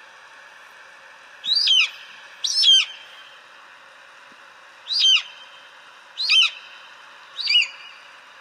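An eagle calling: five short, high cries, each sliding downward in pitch, spaced one to two and a half seconds apart, over a steady background hiss.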